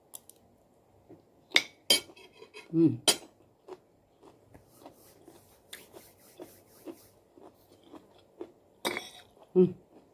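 A metal spoon and fork clink against a dish about four times, the last near the end. Soft chewing and mouth sounds come in between, with two short hummed vocal sounds.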